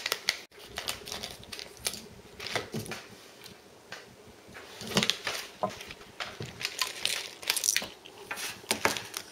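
A crinkly blind-bag wrapper being handled and torn open by hand, with irregular crackles and light clicks and busier bursts about halfway through and near the end.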